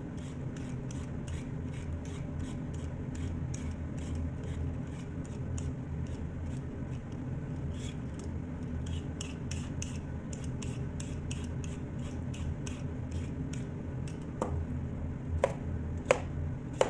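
Y-shaped vegetable peeler scraping strips of skin off a sweet potato in short, quick strokes, about two to three a second. Near the end, a few sharper knocks of a knife chopping the sweet potato on a plastic cutting board.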